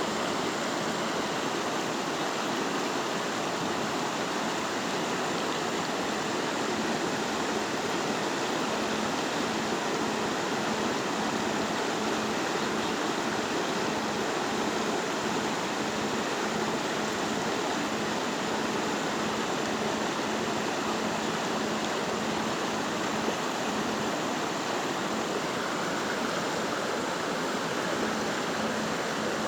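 A Himalayan river rushing over rocks in a steady, loud, unbroken roar of water.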